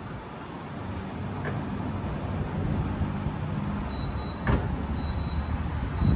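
Hydrogen fuelling station running during a fill, a steady low mechanical rumble, with a faint high tone that comes and goes. A sharp click comes about four and a half seconds in, and a louder thump near the end.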